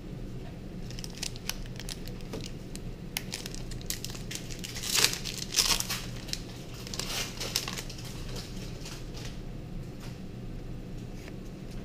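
Foil Pokémon booster pack wrappers crinkling as packs are handled and torn open, in irregular crackling bursts that are loudest around the middle.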